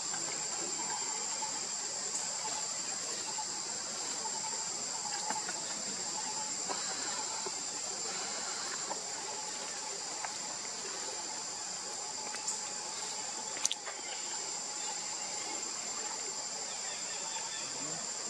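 Steady, high-pitched chorus of insects, crickets or cicadas, with a fainter lower drone beneath it. A single sharp click sounds about three-quarters of the way through.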